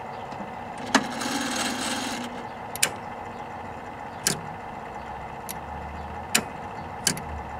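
Relays in a 1961 Zenith Space Command TV's ultrasonic remote receiver clicking, about six sharp clicks at uneven intervals, as a swept tone near 38 to 41 kHz trips the receiver's channels. A low steady hum from the set runs underneath, with a brief hiss about a second in.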